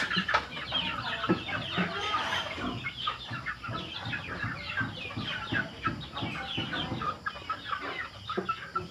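A flock of young chickens peeping and clucking, many short overlapping calls.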